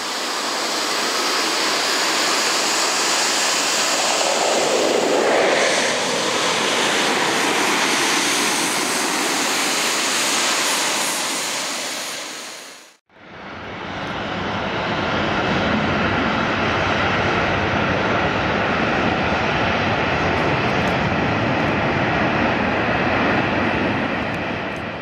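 Boeing 737-800 jet engines (CFM56) on landing approach, a steady loud jet noise that falls in pitch about five seconds in as the plane passes. About halfway through the sound cuts off abruptly and a second 737-800's jet noise fades back in and holds steady.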